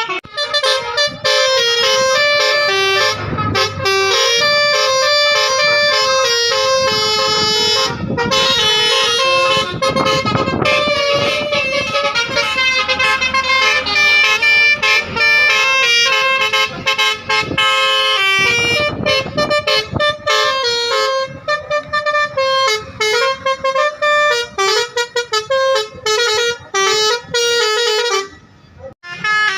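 Basuri telolet musical air horn on a bus playing quick melodies, one short note after another, with a brief break near the end.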